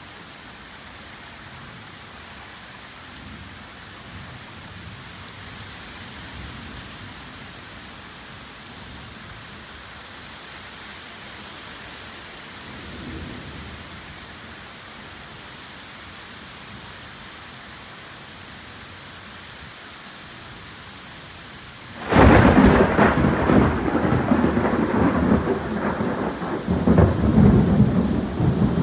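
Heavy tropical rainstorm: a steady hiss of torrential rain, then about 22 seconds in a sudden, very loud crack of nearby thunder that keeps rumbling and swells again near the end.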